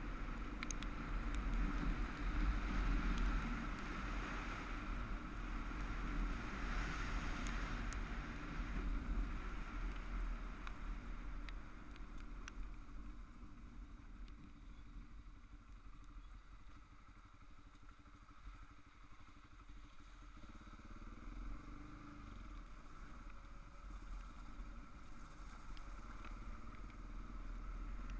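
Adventure motorcycle on a gravel levee track: engine running with wind and tyre noise and scattered ticks of gravel. It eases off and goes quieter about halfway through, then the engine note rises as it picks up speed again.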